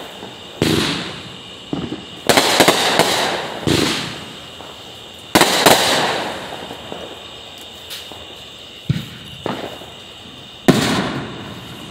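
Aerial fireworks bursting close overhead: about five loud bangs and a few smaller pops, each trailing off over a second or two.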